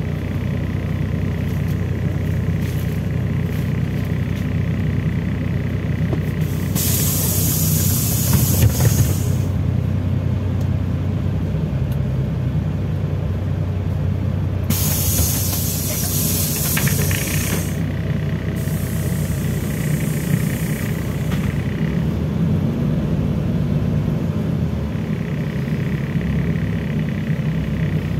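The LiAZ-5293.54 city bus's engine drones steadily, heard from inside the passenger cabin. Three hisses of compressed air from the bus's air brake system cut in over it, each two to three seconds long: one about seven seconds in, then two close together around the middle.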